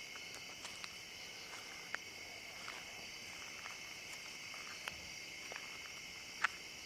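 Night insect chorus, crickets trilling steadily in two high-pitched bands, with a few faint scattered clicks.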